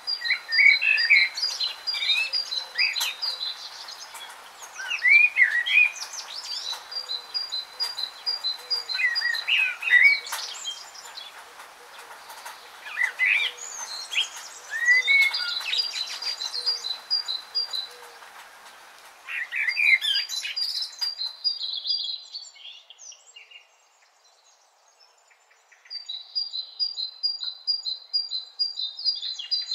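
Songbirds singing: repeated short trills and sharp chirps every few seconds over a steady hiss. The hiss drops out about 22 seconds in, and after a brief lull the trills return.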